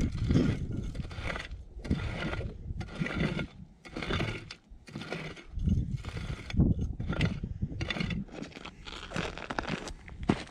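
Hand pick striking and scraping into stony, gravelly soil in repeated irregular strokes, digging out a metal detector target.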